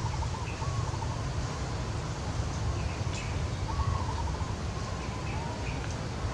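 Steady low rumble under a bird's warbling trill, repeated several times, and a few short high chirps.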